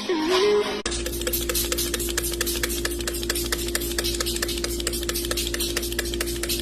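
A small machine running steadily, about a second in: a constant hum with a fast, even clicking.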